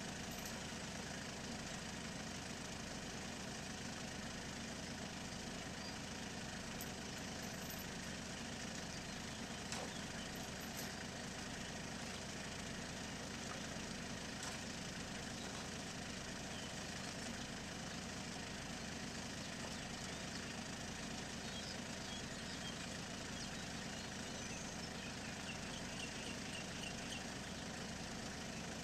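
Small farm tractor engine idling steadily, with an even low chugging.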